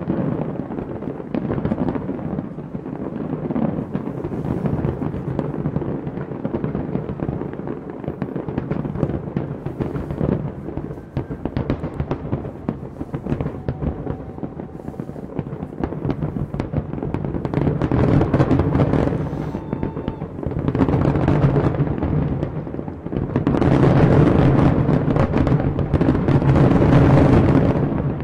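Aerial fireworks display: a dense, continuous crackle of shell bursts over a low rumble of booms, building to its loudest and densest over the last several seconds.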